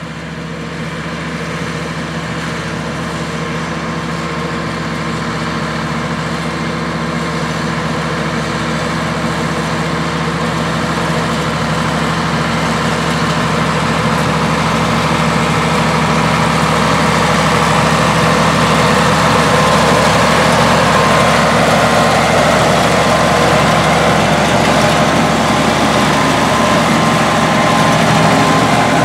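White 185 tractor's Cummins 8.3-litre diesel running steadily under load, pulling a slinger manure spreader whose slinger is throwing manure. The sound gets louder over the first half as the tractor draws near, then holds steady.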